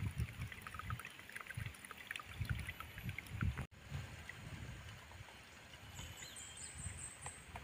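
Coconut milk being poured through a metal strainer into a pot of glutinous rice, trickling and splashing, over an irregular low rumble.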